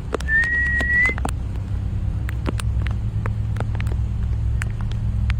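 Heavy rain: a steady low rumble with many sharp, scattered ticks of drops striking close by. A thin, high, whistle-like tone sounds for just under a second near the start, rising slightly as it ends.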